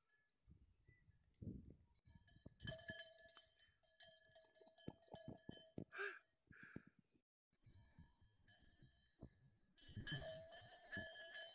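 Faint metal bells clanking and ringing at irregular moments, with a few soft low thumps.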